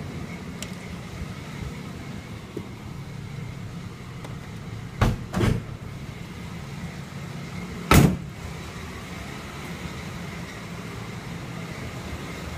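1988 Chevrolet Monte Carlo's 4.3-litre V6 idling steadily, with a faint steady high whine over it. The driver's door is opened with two clunks about five seconds in and shut with a louder clunk about three seconds later.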